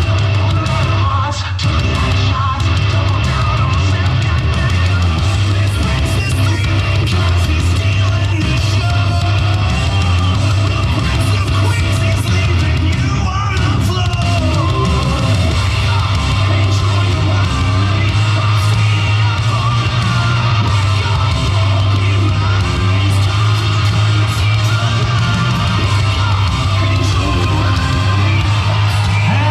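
Wrestler's entrance theme playing loudly over the arena sound: rock music with a shouted, sung vocal line.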